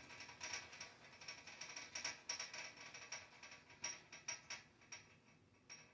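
Broiler heater giving off irregular, faint clicking knocks, a dozen or so spread over a few seconds over a thin high ringing tone. It is the unexplained banging noise that the owner takes for a fault in the heater.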